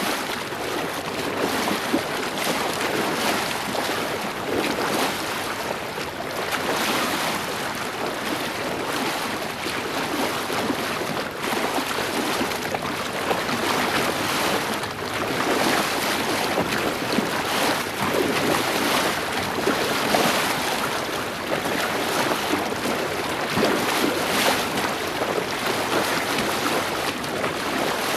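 Water rushing and splashing along the hull of a moving boat, with wind: a steady wash that swells and falls every few seconds.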